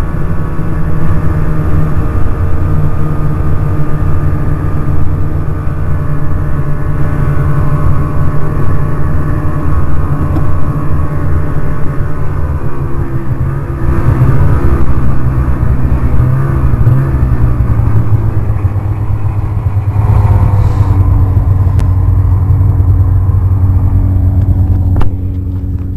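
Snowmobile engine running under way at cruising speed, picking up in pitch and loudness about halfway through and again later as it speeds up, then easing off just before the end.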